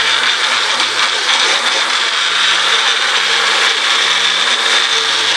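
Countertop blender running steadily, blending cucumber, ginger, lemon, mint, parsley and chia seeds with a little water into a green smoothie.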